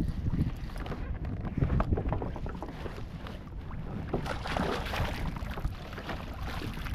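Water splashing and knocks on a kayak, over a low rumble of wind on the microphone, with a busier stretch of splashing about four seconds in.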